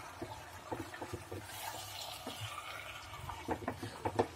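Marinated chicken simmering in a pan in the water it has released: a steady bubbling sizzle. Near the end comes a quick run of clicks from a spatula stirring the pan.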